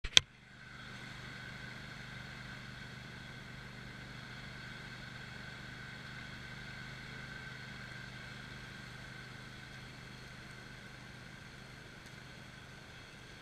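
Crossjet lawn mower's engine running steadily, with a sharp click at the very start.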